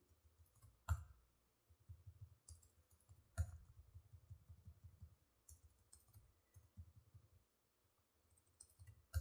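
Faint, scattered clicks of a computer keyboard being typed on, with two louder clicks about one second and three and a half seconds in.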